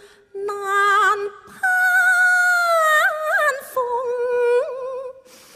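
A woman singing a slow Cantonese opera song (yueju) line with vibrato. She sings a short phrase, then a long held note with quick upward pitch flicks near its end, stepping down to a lower held note that fades away.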